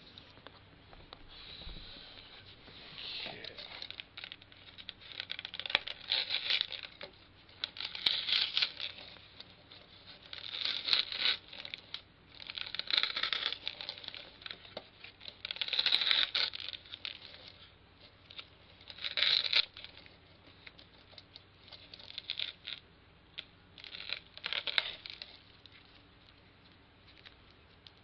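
Packaging being handled: paper or plastic rustling and crinkling in repeated bursts every two to three seconds.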